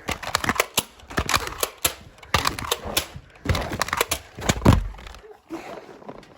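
Rapid, irregular clacks and thumps of a Nerf play fight: toy blasters being cocked and fired, with a few heavier knocks a little after the start and again about halfway through.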